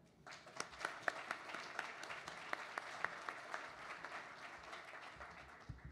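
Audience applauding, a dense patter of hand claps that dies away near the end.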